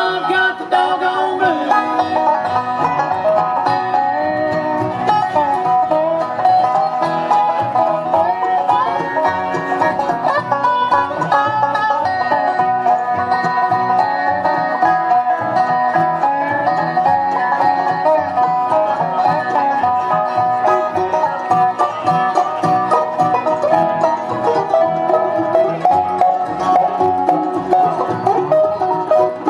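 Live bluegrass band playing an instrumental passage of a blues tune, banjo picking out front over guitar and a steady beat.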